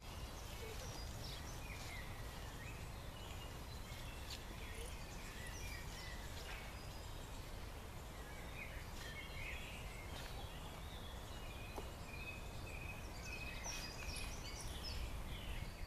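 Outdoor ambience: birds chirping and singing on and off over a low steady rumble.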